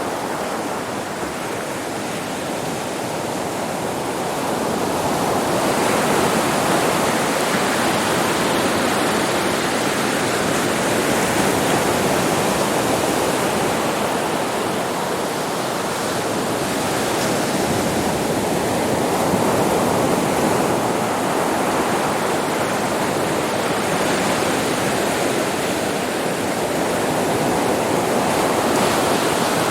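Sea waves breaking and washing onto a beach: a continuous rushing surf that swells and eases every several seconds.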